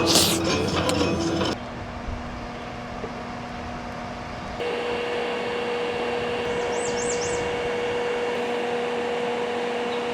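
Steady machine hum with a constant tone, which changes pitch and level at two abrupt cuts. A few quick high chirps sound near the middle.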